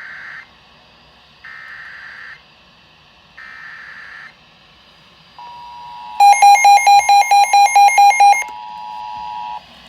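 Emergency Alert System tones: three short bursts of buzzing data signal about a second apart, then the steady two-tone attention signal held for about four seconds, with a loud rapid beeping over it for about two seconds in the middle. The tones announce an emergency alert, here a tornado warning.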